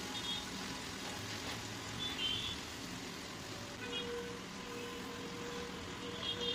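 Sliced onions frying in oil in a pan, a steady sizzle. Over it come a few short high-pitched beeps, and a steady tone begins about four seconds in.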